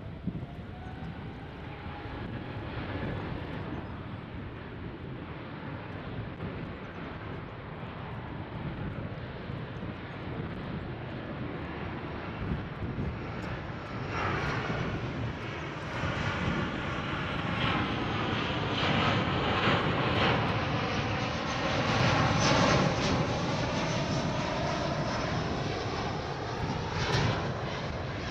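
Jet airliner's engines passing: a steady jet sound that grows much louder about halfway through, peaks a little after two-thirds of the way in, and stays strong toward the end.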